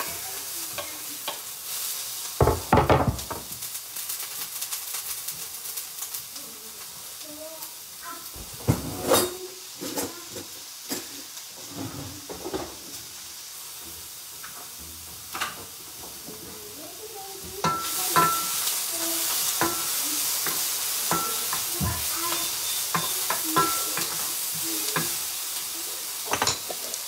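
Chopped vegetables frying in hot coconut oil in a pan, a steady sizzle that gets louder about two-thirds of the way through. Knocks and scrapes against the pan come through it, the loudest a few seconds in as the vegetables are tipped and pushed in from the wooden cutting board.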